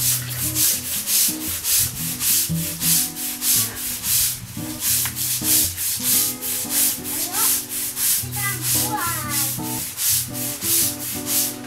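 Stiff-bristled brush scrubbing a wet concrete floor to clear moss, in quick, regular strokes about two to three a second.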